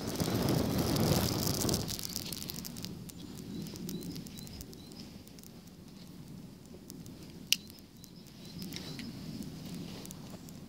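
Burning tuft of common reed plume fluff crackling, with a rush of noise in the first two seconds while the flames are high, then scattered small crackles and one sharp pop as it dies down to smouldering.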